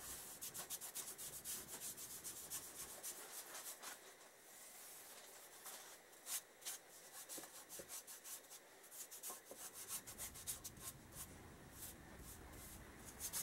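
Cloth rubbed by hand over the painted rim of a motorcycle wheel, working in cutting compound, in many quick strokes.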